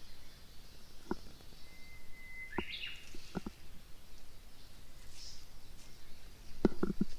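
Wild birds chirping and singing in the open air, with a few scattered light crackles; near the end, footsteps start crunching through dry fallen leaves.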